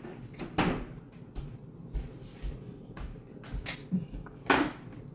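Household knocks and soft low thuds as a barefoot boy walks across a wooden floor carrying a plastic clamshell of grapes; a sharper knock comes about a second in and the loudest one near the end.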